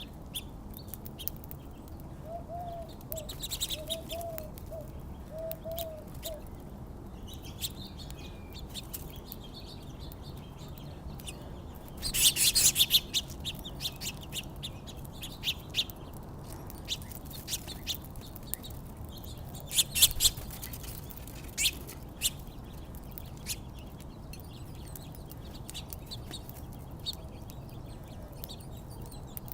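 Small songbirds chirping at a backyard feeder, many short scattered chirps with louder bursts of chatter about 12 seconds in and again about 20 seconds in.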